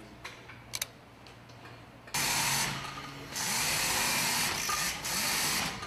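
A couple of light metal clicks from a hand wrench tightening a band on a bomb body. From about two seconds in, air-powered machinery runs loudly with a strong hiss, in long stretches with short breaks.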